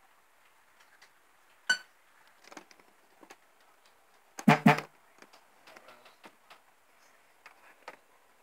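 Clicks and pops of a worn film soundtrack over a faint hiss: a sharp crack a couple of seconds in, a louder cluster of pops around the middle, and scattered smaller ticks.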